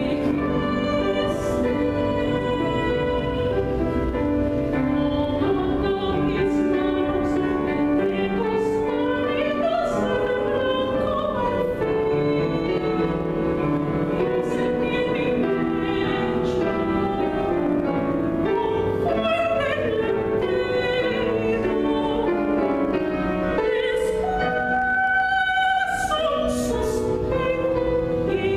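Mezzo-soprano singing in classical operatic style, with wavering vibrato on long held notes, accompanied by a grand piano.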